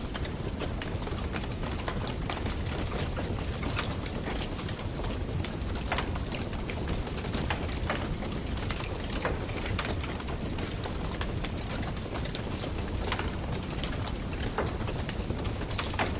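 Campfire burning steadily, the wood crackling and popping in frequent, irregular sharp snaps over a continuous hiss and low rumble of the flames.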